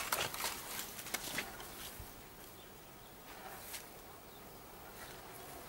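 Faint outdoor ambience on an open lawn, with a few soft, brief clicks.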